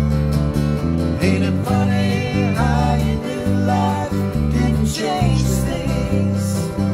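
A small acoustic band playing a song: two strummed acoustic guitars over a bass guitar, with a man singing a line from about a second in.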